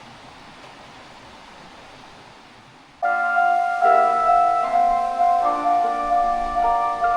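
A steady outdoor hiss, then about three seconds in, background music cuts in abruptly: piano-like keyboard music with one note struck about twice a second over changing chords.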